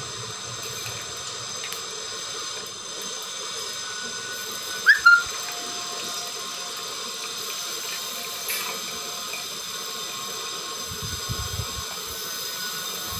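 Fish head frying in mustard oil in a kadai, a steady sizzle. About five seconds in comes a short, sharp, high squeak, the loudest sound. A few light knocks near the end fit the steel lid going onto the pan.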